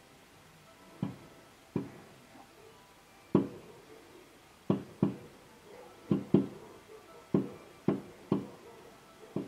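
Professional display firework shells bursting in the air: about eleven bangs at irregular intervals, some in quick pairs, each with a short echoing tail.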